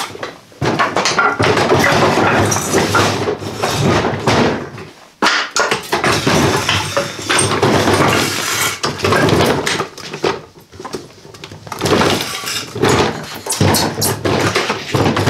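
Wheels of a Ryobi Link rolling tool box rolling and bumping over loose wood blocks and lumber scraps on a concrete floor, with the wood clattering and knocking as pieces are shoved aside. It comes in rough stretches, easing about five seconds in and again about ten seconds in, as the cart catches on the wood and is pushed back and forth to get through.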